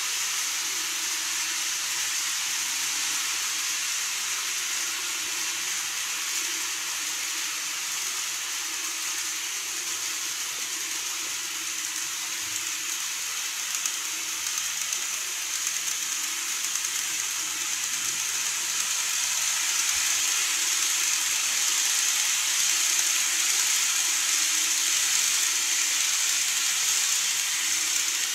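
TOMIX N-scale model train running on plastic viaduct track: a steady high rushing hiss of wheels on rail and the running motor, growing somewhat louder in the second half.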